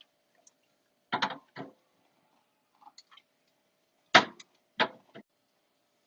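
Items being set down and arranged in a mini fridge during restocking: a handful of sharp knocks and clacks, two about a second in and three more about four to five seconds in, the loudest about four seconds in.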